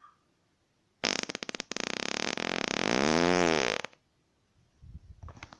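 A person farting: one loud fart about three seconds long. It starts with a rapid sputtering flutter, then turns into a pitched tone that rises and falls away before it stops.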